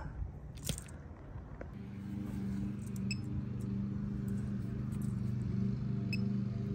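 A few faint scrapes and a knock from a hand digger cutting into lawn turf, then soft ambient synthesizer music with long held low notes from about two seconds in.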